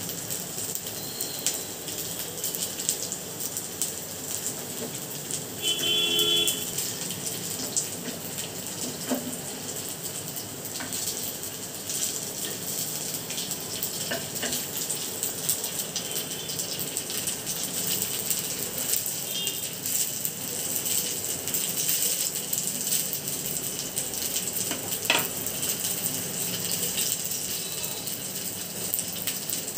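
Thavalai vadai, small rice-and-lentil fritters, deep-frying in hot oil over a medium flame: a steady sizzle. A brief tone sounds about six seconds in, and a single click near the end.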